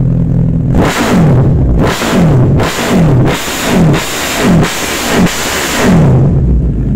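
Suzuki Hayabusa 1340 cc inline-four idling, then revved hard in a quick string of sharp throttle blips through aftermarket Racefit exhausts, each rev falling back about two-thirds of a second later. It settles back to idle near the end.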